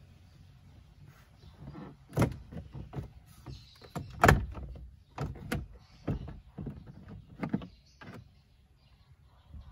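Plastic instrument-cluster cowl of a Suzuki Celerio dashboard being pulled off by hand: a run of sharp clicks and knocks as its retaining clips pop loose and the trim rattles, the loudest about four seconds in.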